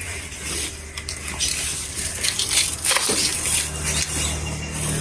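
Dry banana leaves rustling and crackling against a bicycle loaded with banana bunches as it is handled and wheeled, with a low rumble that grows louder near the end.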